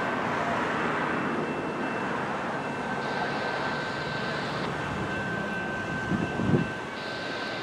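Steady distant vehicle rumble with a faint steady high whine, and a brief low swell about six seconds in.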